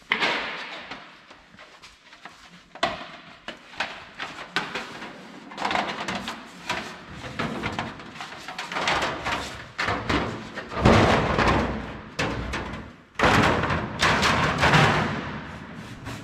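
Thin coated sheet metal being handled in a roll-forming and seaming machine: a run of clanks and thuds with the rattle of the flexing sheet. It is loudest about eleven seconds in and again around fourteen seconds.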